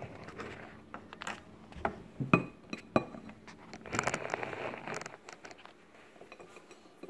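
Small plastic toys and toy furniture clinking and knocking on a tabletop as they are handled and moved, a few sharp clicks over the first three seconds, then a brief rustling stretch about four seconds in.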